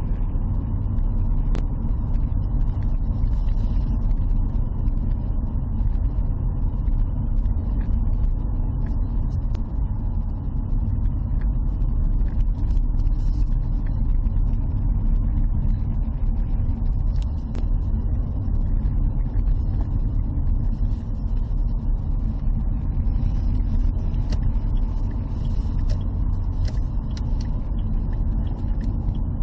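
Steady low rumble of engine and tyre noise inside a Dacia Sandero's cabin while driving at road speed, with a few faint ticks.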